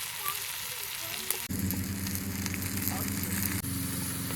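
Food sizzling and frying in a pot over a campfire, a steady hiss. About a second and a half in, a steady low droning hum joins it.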